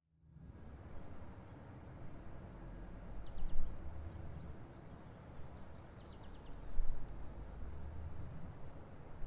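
Outdoor ambience: crickets chirping in a steady rhythm, about three or four short high chirps a second, over a steady high hiss and a low rumble that swells twice.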